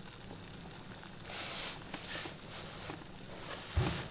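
Rustling from something hidden under a bed, in four or five short bursts, with a soft low thump near the end.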